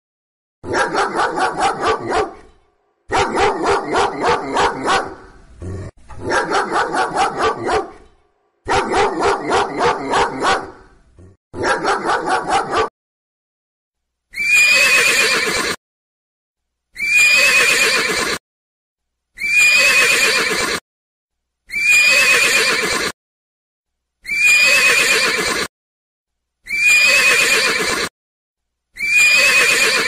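A dog barking in five quick runs of several barks each over the first thirteen seconds or so. Then a horse whinnying again and again: the same falling whinny about every two and a half seconds, seven times.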